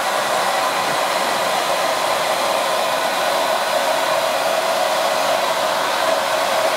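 JMW MA6001A hair dryer running steadily, its fan giving an even, unchanging rush of air.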